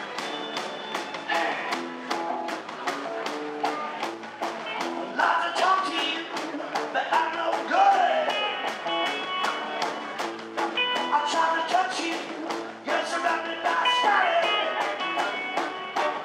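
Live rock band playing: electric guitar, electric bass and a steady, fast drumbeat, with a man singing lead in the middle and again near the end. The recording has very little low end.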